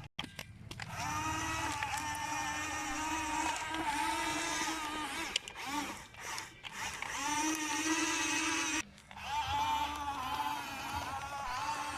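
Electric motors of a toy remote-control excavator whining steadily in long runs, with short breaks about halfway through and again later.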